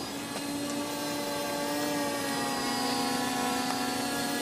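Quadcopter's four electric motors and propellers buzzing with a steady pitch as it hovers, wavering only slightly.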